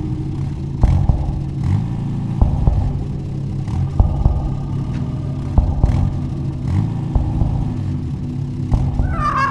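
Cartoon car engine sound effect running with a steady low rumble, with regular thumps a little more than once a second. A high rising tone breaks in at the very end.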